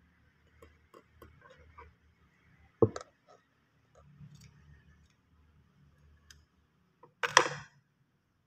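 Scissors and a metal crochet hook handled while cutting yarn: a run of light clicks, a short sharp clack about three seconds in, and a louder clatter of about half a second a little after seven seconds.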